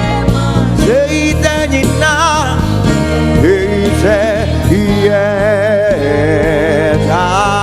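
Live gospel worship music: a singer holds long, wavering notes over steady band accompaniment.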